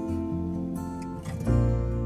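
Background music on acoustic guitar: slow ringing chords, with a new chord struck about one and a half seconds in.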